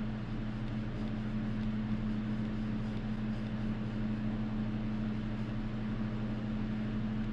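Steady low machine hum with an even hiss underneath, unchanging throughout.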